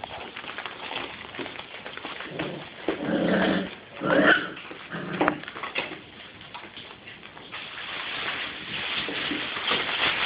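Airedale terrier puppies making several short whimpering and growling calls a few seconds in, amid small clicks and scuffles. A rising hiss of noise follows near the end.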